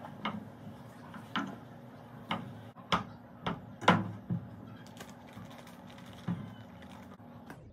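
Kitchen food preparation: irregular sharp knocks and clicks of utensils and containers being handled on a counter, the loudest about three and four seconds in, over a low steady hum.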